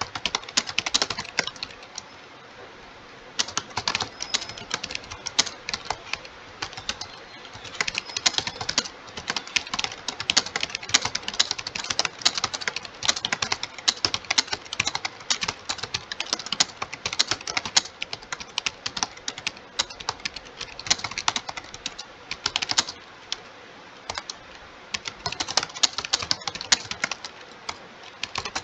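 Computer keyboard typed on quickly and steadily in a speed test, a fast run of key clicks with brief pauses about two seconds in, a few seconds in, and past the three-quarter mark.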